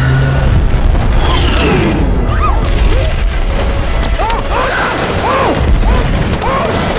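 Loud, constant low rumbling with booms, and from about two seconds in, short cries that rise and fall in pitch over and over.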